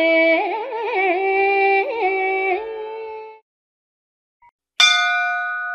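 Carnatic-style singing of a Tamil devotional hymn: a long held note with wavering ornaments, fading out about three seconds in. After a short silence a single struck tone sounds and rings on, slowly dying away.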